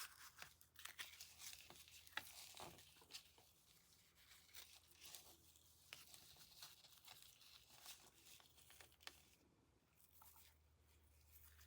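Faint, irregular rustling and small clicks of hands handling and tying a tulle ribbon bow, with a short lull near the end.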